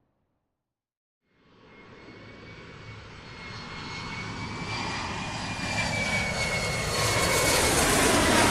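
Airplane flying over: after about a second of silence, engine noise fades in and grows steadily louder as the plane approaches, with a thin high whine over the wide rushing sound that bends slightly in pitch, loudest near the end.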